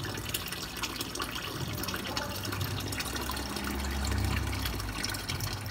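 Water running and splashing steadily, with many small crackling splashes and a low hum that swells about four seconds in.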